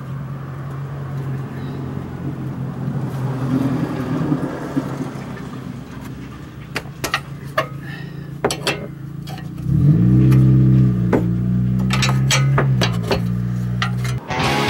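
A wrench clinks on the steel castle nut of a tie-rod end in scattered sharp metal clicks. Under it runs a steady low motor hum that gets louder with a brief rise in pitch about ten seconds in.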